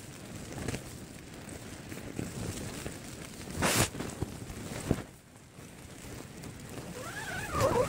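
Wind and rain buffeting the microphone on an exposed ridge, with a loud rustle or gust about halfway through. A short voice-like murmur comes near the end.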